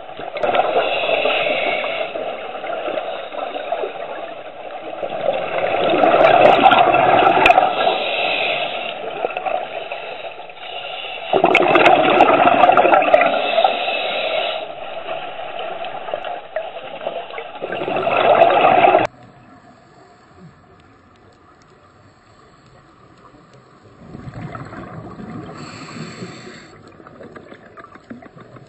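Scuba regulator exhaust bubbles recorded underwater, a loud bubbling rush that swells and fades every few seconds with each exhalation. It drops off suddenly about two-thirds of the way through, leaving one fainter swell of bubbles later.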